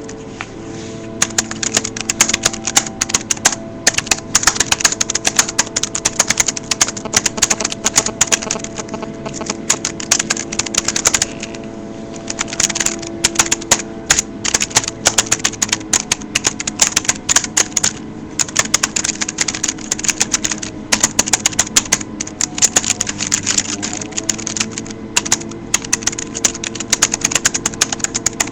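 Fast, continuous typing on a wireless computer keyboard, a dense run of key clicks that pauses briefly a couple of times. A steady low hum sits underneath.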